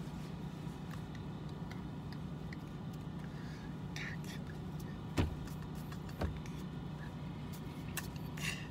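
Steady low hum inside a vehicle cab, with two sharp taps about five and six seconds in and a few faint mouth or breath sounds.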